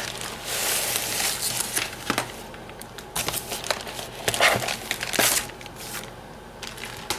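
Metallic plastic bubble mailer crinkling and rustling as it is handled and a makeup bag is pulled out of it: a dense stretch of crinkling in the first two seconds, then quieter rustling with a few sharp crackles.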